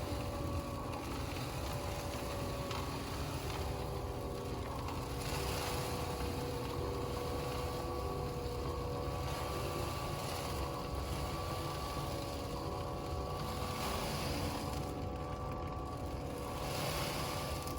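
A steady mechanical hum: a low rumble with a few held, unchanging tones, like a small motor running.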